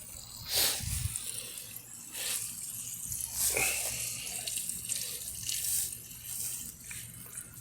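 Water gushing and splashing out of a water heater being drained, carrying out heavy sediment. The flow comes in uneven surges.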